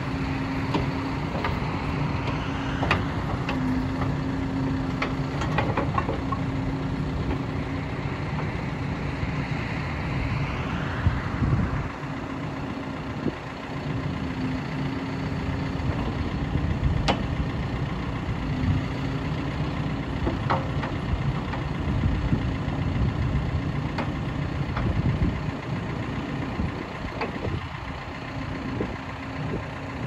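John Deere 710L backhoe loader's diesel engine running steadily while the backhoe boom and bucket are worked, with a steady hum and a few sharp knocks.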